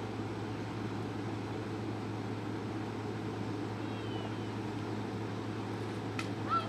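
Steady low hum and hiss of an old home-video soundtrack, with no clear sound event. A faint short chirp comes about four seconds in, and a click with a brief high rising sound near the end.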